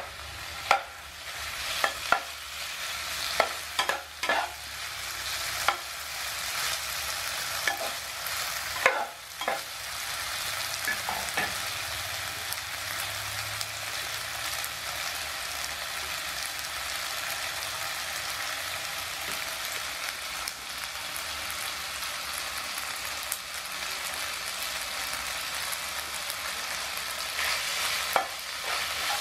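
Yakisoba noodles and sliced sausage sizzling steadily in a nonstick frying pan, with a metal spatula scraping and knocking against the pan as the food is stirred, mostly in the first ten seconds or so and again near the end.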